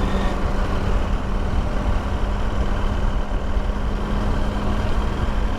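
KTM motorcycle engine running steadily at low revs, heard through an in-helmet microphone with low wind rumble.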